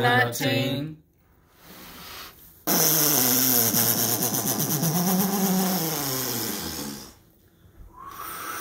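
A man blowing one long, forceful, growling breath toward the microphone for about four seconds: the mock 'wind of God' blow. A shorter, quieter breath comes before it, and another softer blow comes near the end.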